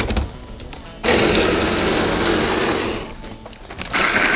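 Electric mini chopper (a hand blender's chopper bowl) running in two pulses, chopping tomato and onion into a coarse mash. The motor starts about a second in, runs for about two seconds, stops briefly, then starts again near the end.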